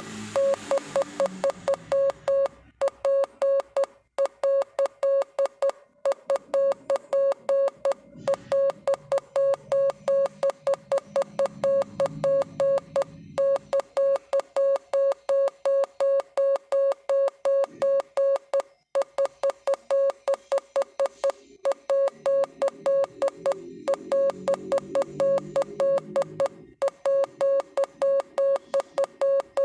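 Morse code beeps: a single mid-pitched tone keyed on and off in quick dots and dashes, with short breaks every few seconds between groups. A softer low background sound swells and fades underneath at times.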